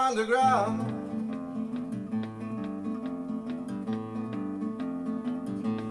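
A man sings the song's last word over an acoustic guitar, then the guitar plays a closing phrase of evenly repeated plucked notes alone and stops abruptly near the end.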